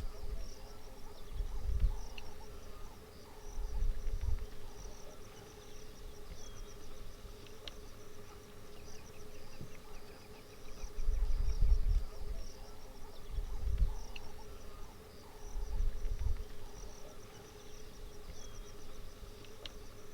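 Insects chirping in a high, rapidly pulsed chorus over a steady drone, broken by several low rumbles a couple of seconds apart, the loudest about halfway through.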